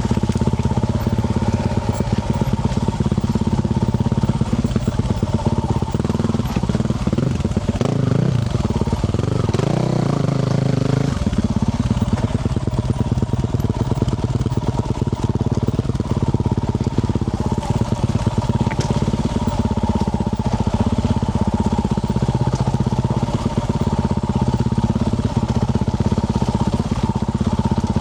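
2024 Yamaha YZ450F's 450cc single-cylinder four-stroke engine running through a Yoshimura RS-12 exhaust while trail riding, with the engine pitch rising and falling around eight to eleven seconds in as the throttle changes.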